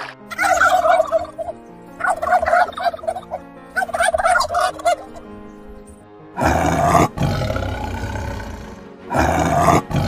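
Three short bursts of rapid, warbling animal calls, then a tiger roaring twice, about six and a half seconds in and again near the end, over quiet background music.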